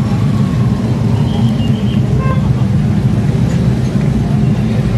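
Loud steady rumble of road traffic, mixed with chicken pieces deep-frying in a large wok of bubbling oil.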